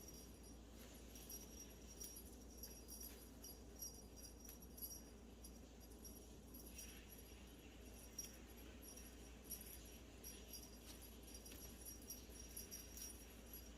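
A small bell jingling faintly in short, irregular shakes, as when a kitten plays with a belled toy or collar.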